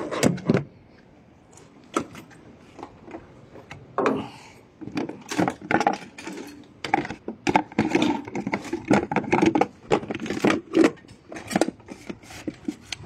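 Irregular clicks and knocks of small hard objects being handled, denser from about five seconds in.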